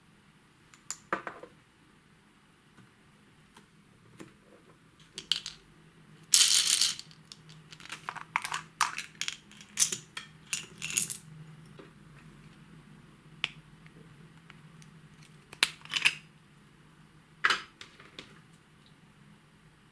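Homemade slime being handled and mixed by hand: a string of short, irregular crackles, clicks and pops, with the longest and loudest burst about a third of the way in.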